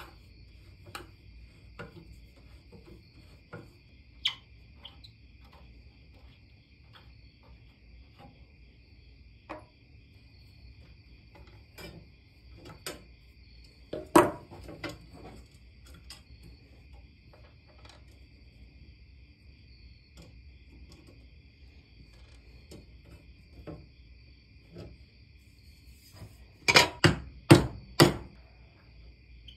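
Small metal clicks and taps of a screwdriver and adjustable wrench on the bolts of an old iron farm tool, with a louder rattle of metal about halfway through. Near the end come four sharp hammer blows about half a second apart on the tool held in a bench vise; they are the loudest sounds.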